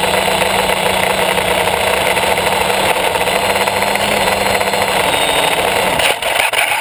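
Brushless motors and propellers of a tricopter, heard from its onboard camera, running with a steady buzzing whine. About six seconds in the motors throttle down unsteadily as it comes down to land, and they stop abruptly near the end.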